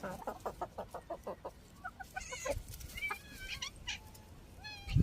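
A hen clucking in a quick run of about eight clucks a second, then several short high-pitched calls.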